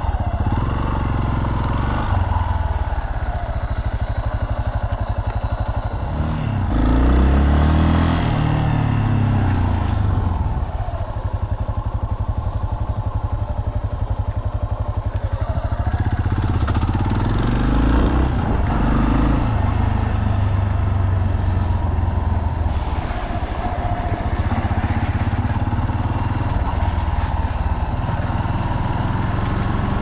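Yamaha Serow's single-cylinder four-stroke engine running on the move, its revs rising and falling a few times as the bike accelerates and shifts, most clearly about seven seconds in and again about sixteen to nineteen seconds in.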